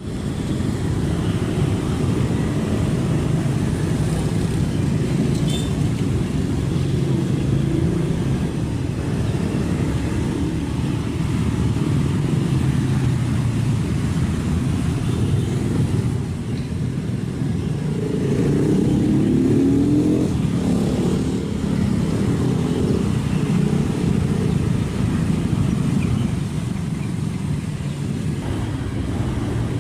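Kobelco SK75 excavator's diesel engine running steadily at working revs. About eighteen seconds in its note climbs and gets louder for a few seconds, then settles back.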